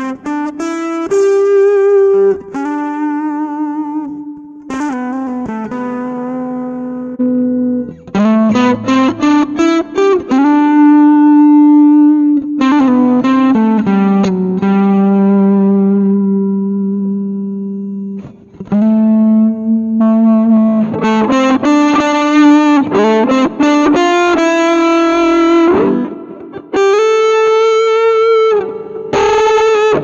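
Electric guitar played through the Zoom G1 Four multi-effects pedal's patch 47, "MK1 Lead", an MK1 amp model with Tube Screamer drive. It plays single-note lead lines: fast runs broken up by long sustained notes with bends and vibrato.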